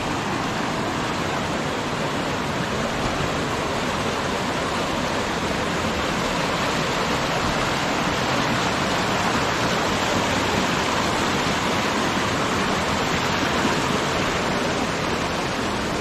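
Mountain stream rushing over boulders and small cascades: a steady, unbroken rush of water.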